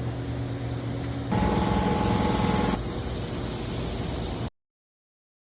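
Spray gun hissing steadily as peelable liquid wrap is sprayed onto a car, with a louder stretch carrying a steady whine from about one to three seconds in. It cuts off abruptly about four and a half seconds in.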